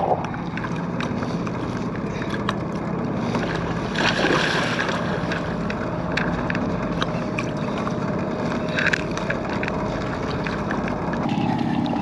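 Wind on the microphone and choppy water against a fishing kayak, with a steady low hum underneath and scattered sharp clicks.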